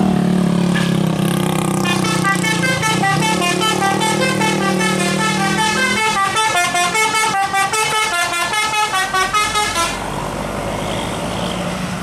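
A tour bus's telolet horn, a multi-trumpet roof-mounted musical air horn, playing a fast tune of stepped notes. It starts about two seconds in and cuts off about ten seconds in. The bus's engine drones underneath during the first half.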